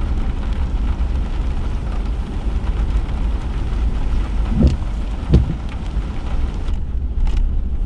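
Steady vehicle road noise from inside a slowly driven car, with rain on the car, and two short squeaks about halfway through.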